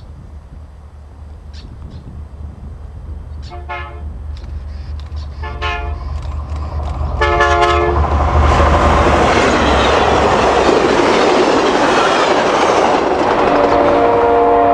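Pennsylvania Railroad EMD E8 diesel locomotives approaching with a building engine rumble, the air horn sounding three blasts, the third a little longer. The train then passes close by with loud engine and wheel noise, and as it recedes a long steady horn blast begins near the end.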